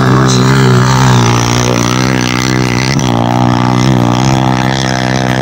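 Motorcycle engine running steadily, its pitch wavering slightly.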